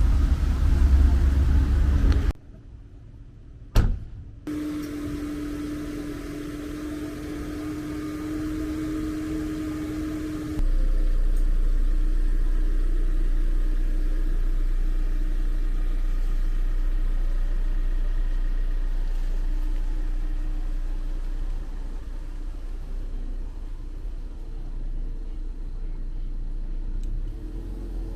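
A car running, a steady low rumble with a single click about four seconds in. From about ten seconds in, a strong steady low drone of the car on the move.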